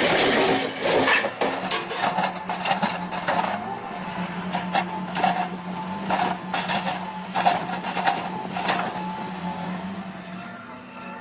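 Excavator engine running steadily, with repeated clattering knocks of rock being moved and dumped over it.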